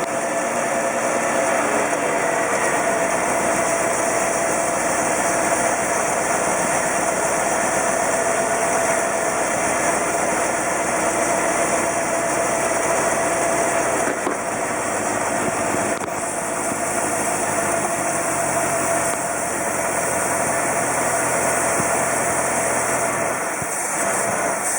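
1958 Chevrolet Bel Air engine running steadily on a cold start but not settling into a proper idle, a few seconds at a time with small dips in loudness around two-thirds of the way through.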